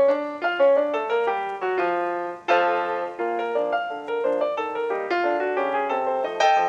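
Ragtime piano background music, a quick run of bright piano notes.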